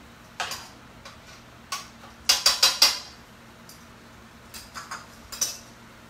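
Metal utensil clinking and scraping against a stainless steel sauté pan as the food in it is stirred and tossed. It comes as a run of sharp clinks, loudest in a quick cluster of about four a little past two seconds in, then several more near the end.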